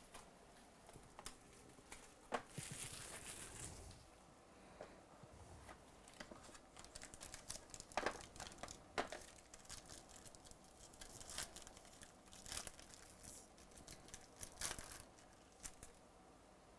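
Faint tearing and crinkling of a foil wrapper being ripped open on a box of baseball cards, with a few sharp clicks and taps as the box and cards are handled.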